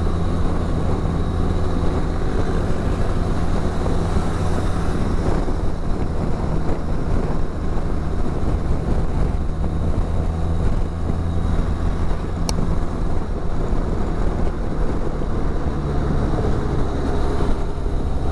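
Benelli TRK 502's parallel-twin engine running steadily while riding at road speed, with wind and road noise rushing over the microphone. A single brief click about twelve seconds in.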